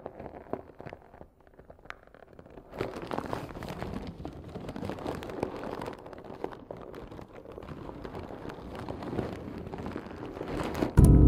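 Crackling, rustling noise, faint at first and steadier and louder from about three seconds in. Near the end, a loud held chord of music cuts in suddenly.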